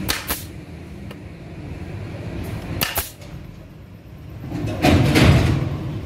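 Pneumatic nail gun firing into plywood: two sharp shots at the start and two more about three seconds in. Near the end comes a louder stretch of noise.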